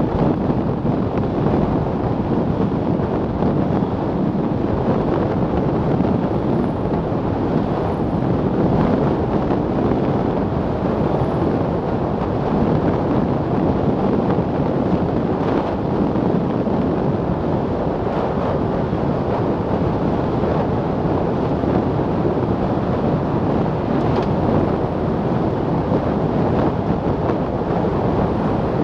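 Steady rush of wind on the microphone of a roofless Milan Mk4 velomobile travelling at about 60 km/h.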